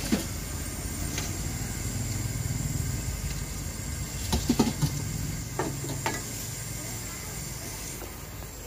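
Street-stall ambience: a low steady engine hum of passing road traffic that swells and fades, over the sizzle of ragda on a hot iron tawa, with a few sharp metal clinks about halfway through.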